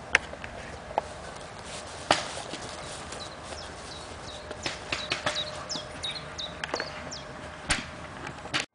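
Scattered sharp pops of paintball markers firing, a few of them loud, with a bird chirping high and repeatedly in the middle stretch. The sound cuts off abruptly just before the end.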